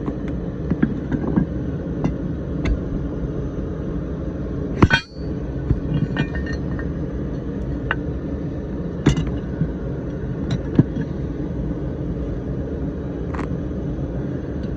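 Small metal clutch parts clicking and clinking as clips are worked onto the throwout bearing, with one sharper knock about five seconds in, over a steady low rumble.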